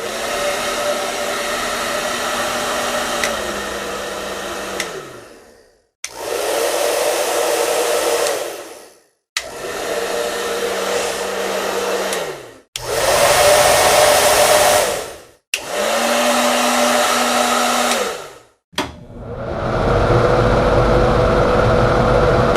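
A series of hair dryer recordings, six in a row. Each blows steadily with a motor hum, then is switched off, the hum dropping in pitch as the motor winds down.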